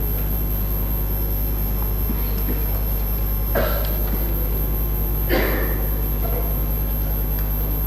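Steady low electrical hum on the assembly hall's microphone feed, with two brief soft noises about two seconds apart midway.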